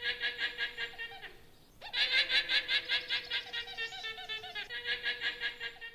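Guanaco calling: rapid, high-pitched bleating notes, about four a second, in two runs with a short pause about a second and a half in.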